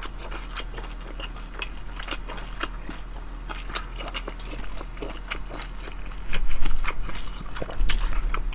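Close-up chewing of battered fried pork (tangsuyuk): wet, crackly mouth sounds in many small irregular clicks. There are a couple of louder low thuds about six and eight seconds in.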